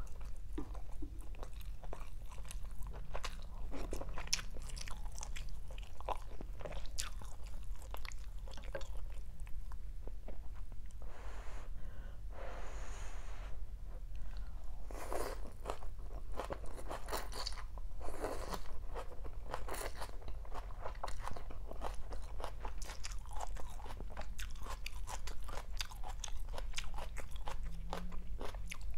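Close-miked eating: crunching and chewing of raw greens (shredded water spinach, bean sprouts, lettuce) and rice vermicelli, many small crisp crackles and wet mouth clicks in quick succession.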